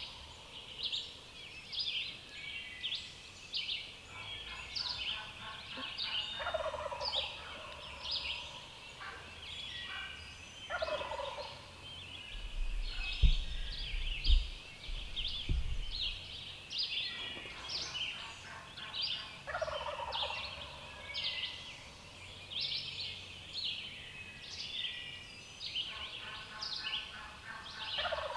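Wild turkeys calling in the woods, with gobbles rattling out several times, over songbirds chirping steadily. A couple of low thumps come about halfway through.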